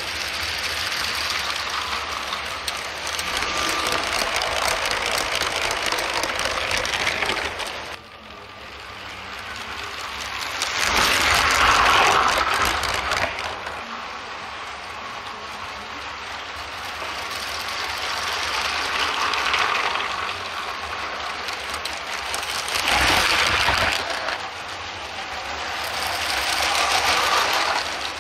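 Motorised LEGO trains running on plastic LEGO track, a steady mechanical rattle of small wheels and motors. It swells and fades several times as trains pass near and move away, dropping off sharply about a third of the way in and loudest a little later.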